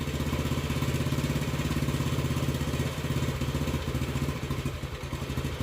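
1979 Honda CT90's small single-cylinder four-stroke engine idling with a steady, even putter through its aftermarket muffler. Its idle is being brought down slightly on the idle screw of a replacement Chinese carburetor, and the engine runs a little softer about four seconds in.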